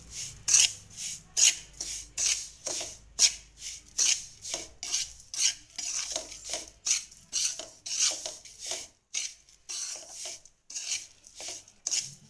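Metal spatula scraping and stirring coarsely ground moong dal with ghee around a metal kadhai, in quick repeated strokes of about two a second, as the dal is roasted.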